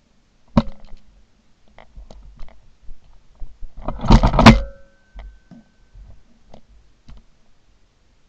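Handling noise from a shotgun with the camera mounted on it. There is a sharp click a little over half a second in, then scattered smaller clicks, and a dense metallic clatter about four seconds in that ends in a brief ringing tone.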